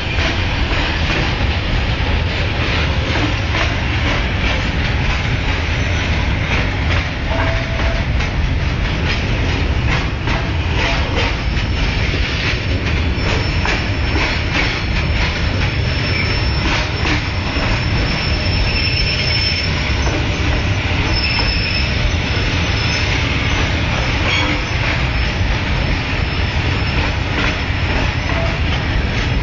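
Freight train wagons rolling past at close range: a steady loud rumble with quick clicks of wheels over rail joints, and a faint high wheel squeal for several seconds in the middle.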